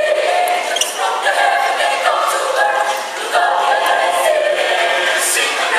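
Mixed choir of men's and women's voices singing a hymn-like song in parts, in sustained phrases with short breaths between them.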